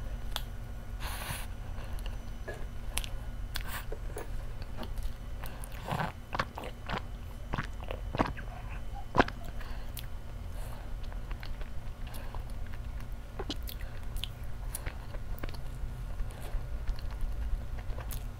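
Close-miked chewing and biting of soft chocolate cake and whipped cream, with scattered small clicks and mouth sounds and one sharper click about nine seconds in. A low steady hum runs underneath.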